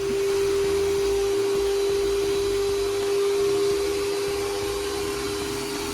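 A kitchen appliance's electric motor running steadily, giving a constant hum over an even hiss.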